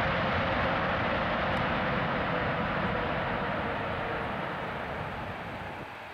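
Jet engines of a Boeing 747-8 freighter on the runway: a loud, steady jet roar with a faint whine that sinks slightly in pitch, fading gradually as the aircraft moves away.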